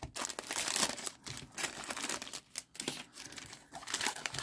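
Foil-and-plastic Pokémon booster pack wrappers crinkling as a bundle of taped-together packs is handled and pulled apart, in irregular crackly bursts with short pauses.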